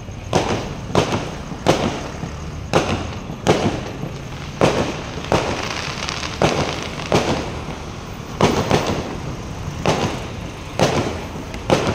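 A barrage of aerial fireworks bursting in quick succession, about fourteen sharp bangs a half-second to a second apart, each trailing off in a short echo.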